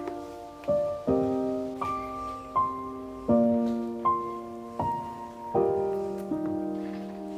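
Background piano music: a note or chord struck about every three-quarters of a second, each left to ring and fade.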